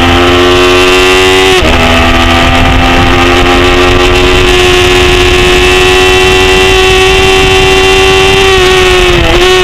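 Engine of a 250 cc production race motorcycle running hard at high revs, heard onboard with wind rushing past the microphone. The pitch drops at a gear change about a second and a half in, then climbs steadily, and dips briefly before recovering near the end.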